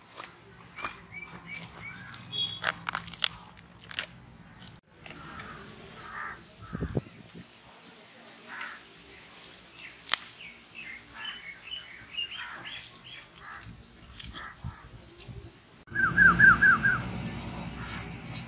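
Birds chirping and calling, with many short scattered chirps and an evenly repeated high peep from about five seconds in until about fifteen. Near the end the background grows louder and a quick run of five rising chirps sounds.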